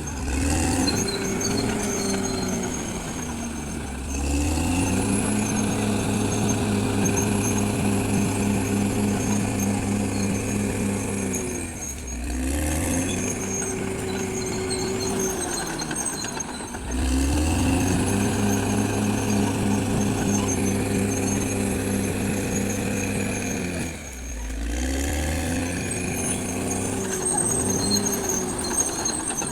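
Caterpillar D6R XL bulldozer's diesel engine working under load, its pitch dropping and picking up again several times, with a thin high whine during the steadier stretches.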